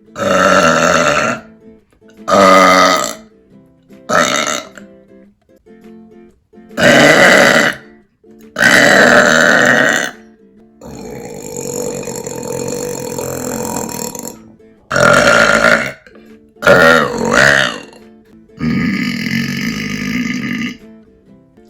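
A woman burping loudly again and again, about eight burps, most around a second long, with a longer, softer one in the middle. Background music plays underneath.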